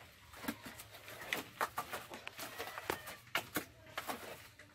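Irregular light clicks and taps, several a second, of a trowel and gravel stones being handled at the edge of a freshly poured concrete floor.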